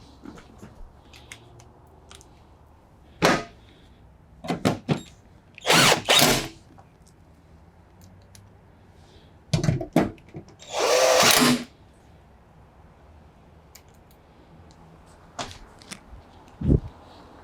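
Power drill driving in screws in about five short runs, each a second or less, with small clicks and knocks between them.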